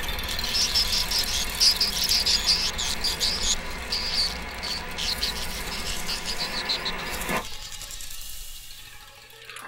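Insects chirping in rapid high-pitched pulses, several a second, over a low steady hum; the chirping cuts off abruptly about seven seconds in.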